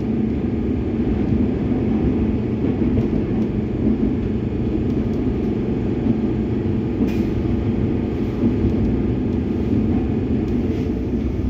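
Cabin noise of a Comeng electric suburban train running along the line: a steady low rumble of wheels on rail and running gear, with one brief sharp click about seven seconds in.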